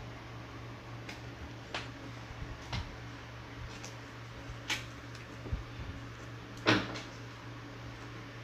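Short, sharp clicks and taps of folded origami paper being pressed and creased between fingers, about half a dozen, the loudest about two-thirds of the way through, over a steady low hum.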